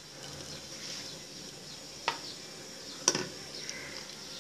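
Water simmering in an aluminium pot as a metal spoon lifts boiled rice-flour dough rolls out, with a steady light hiss of small bubbles. The spoon clinks sharply against the pot twice, about two and three seconds in.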